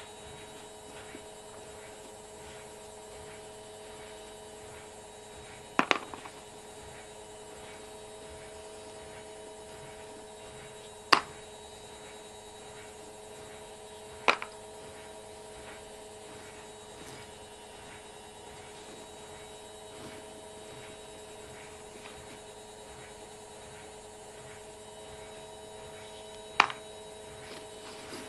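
Steady electrical hum with a few sharp metallic clicks, four in all, as steel nails and screws knock together while they are picked out of a pile by hand.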